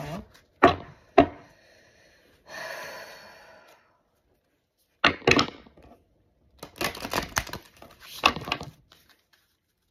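A deck of oracle cards being handled and shuffled: two sharp card snaps about a second in, a soft rasp of cards sliding, then bursts of clattering shuffling.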